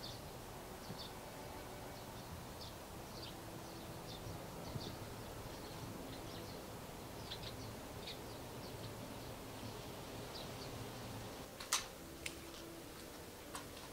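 Small birds chirping in short, scattered calls over a steady low background hum, with a sharp click near the end.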